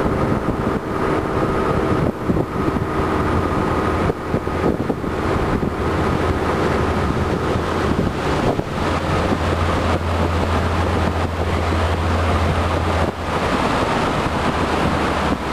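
Motorboat engine running steadily while the boat is under way, a continuous low hum under a rushing noise of wind on the microphone. The hum grows stronger for a few seconds past the middle, then eases back.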